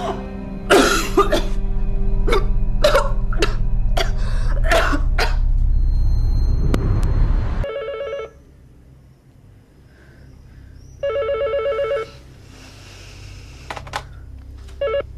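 A woman's gasping sobs over a low droning music bed, which cuts off abruptly. A telephone then rings with a warbling electronic trill, three rings about three seconds apart.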